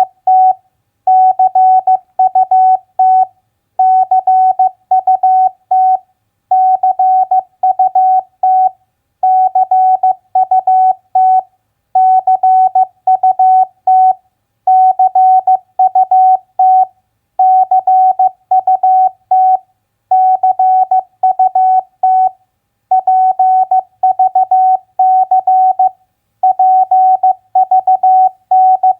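Morse code (CW) sent as a single steady beep tone switching on and off in dots and dashes at 15 words per minute. It spells out three-letter words one after another, with a short pause between words about every three seconds.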